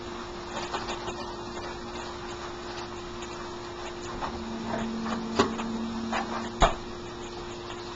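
Hash browns of potato and onion frying in a skillet: a steady sizzle under a constant low hum. Two sharp knocks come about five and a half and six and a half seconds in, the second the louder.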